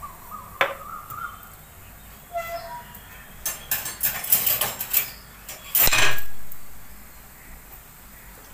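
Steel kitchen utensils clinking and clattering: a single click early, then a scattered run of metal clinks between about three and a half and six seconds in, ending in a louder clang that rings away.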